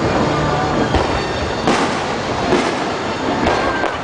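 Fireworks going off: a dense, steady crackling with several sharper bangs about a second apart.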